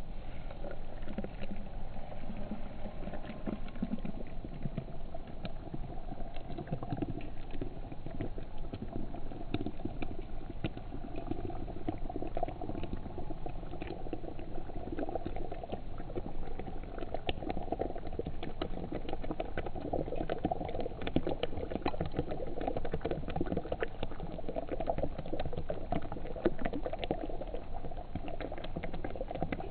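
Water boiling hard for coffee, bubbling and gurgling steadily with many small crackling pops.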